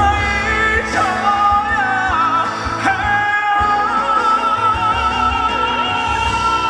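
Live ballad: a singer holds long, wavering notes over band accompaniment, with one long sustained note near the end.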